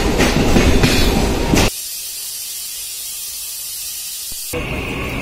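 Suburban electric local train at a platform, a loud rumble with platform noise, cut off abruptly after about a second and a half by a steady high hiss that lasts nearly three seconds before a busy platform noise returns near the end.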